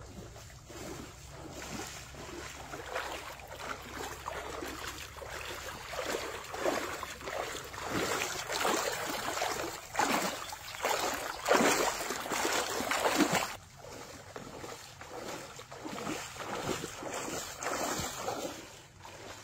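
Shallow floodwater sloshing and splashing as a person wades through it, a surge of water with each stride. The splashing is loudest in the middle and drops off suddenly about two-thirds through, then goes on more softly.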